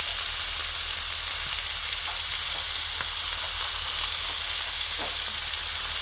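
Thinly sliced ribeye sizzling steadily on an electric griddle, with a few faint ticks.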